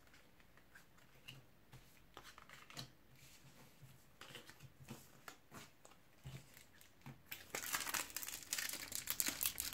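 Scattered soft taps of trading cards being laid on a wooden table, then from about seven and a half seconds the louder crinkling of a foil Match Attax card packet being handled and torn open.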